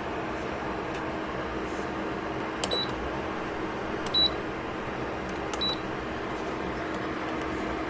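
Three short, high electronic beeps about a second and a half apart, over a steady background hiss with a faint low hum.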